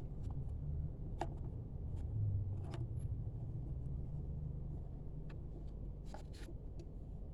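Steady low rumble with a few scattered light clicks and taps.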